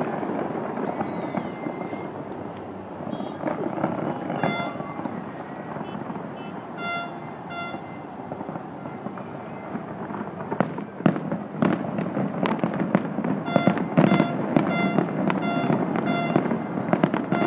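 Fireworks going off in a continuous rumble of bursts and crackle, with sharp bangs coming thicker over the last seven seconds. Short horn toots sound a few times, then in a quick run of several near the end.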